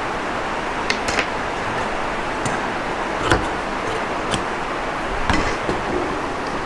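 Steady hiss of rain falling outside, with a handful of sharp clicks and taps as tailor's chalk, a wooden ruler and large fabric shears are worked on a table; the sharpest tap comes about a third of the way in.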